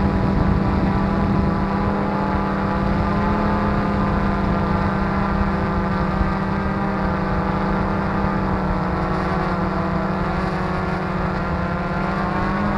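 Q450 quadcopter's motors and propellers humming steadily in flight: a strong steady tone with many overtones that drift slightly in pitch as the throttle changes.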